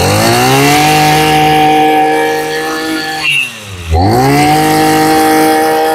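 Maruyama 26cc brush cutter engine revved to full throttle twice. It climbs to a steady high note and holds for about three seconds, drops back toward idle, then revs up again and holds high, running strongly.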